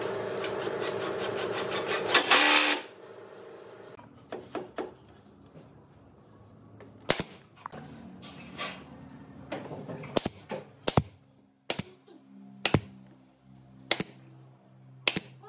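Workshop tool noise: a power tool runs for nearly three seconds and stops suddenly, then sharp knocks or taps follow, about one a second toward the end.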